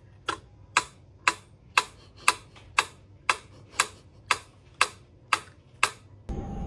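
Steady, evenly spaced ticking, about two sharp ticks a second, twelve in all. Near the end the ticking stops and a louder background noise begins suddenly.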